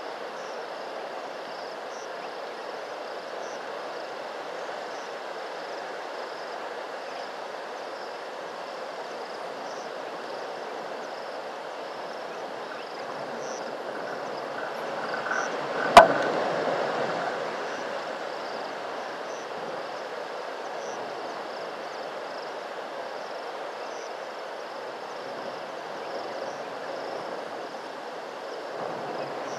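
Steady outdoor bush ambience, an even hiss with faint insect chirps, broken once about halfway by a single sharp click.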